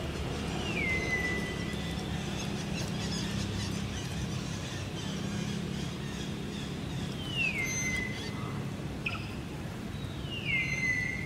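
Three high whistled animal calls, each gliding down and then holding one steady note for about half a second to a second: one near the start, one about seven seconds in and one near the end. A low steady hum runs underneath.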